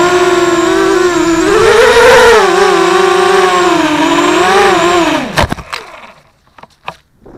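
Electric motors and propellers of a 250-size FPV quadcopter whining loudly, the pitch rising and falling with the throttle. A little after five seconds the whine drops and cuts out, followed by a few sharp knocks as the quad hits the ground and tumbles.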